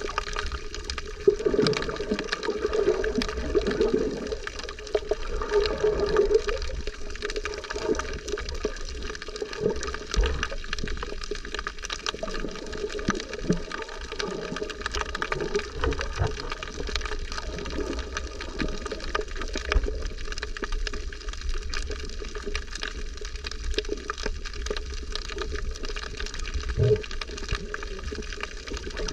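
Sea water sloshing and bubbling around a snorkeler's camera, over a steady low rumble.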